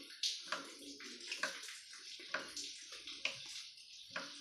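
A hand mixing rice flour and gram flour with hot water in a steel bowl, making chakli dough: repeated rubbing and swishing strokes against the bowl, roughly two a second.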